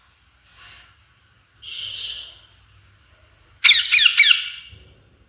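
A parrot calling: two soft raspy sounds, then about three and a half seconds in a loud burst of rapid, shrill squawks, each falling in pitch, lasting about a second.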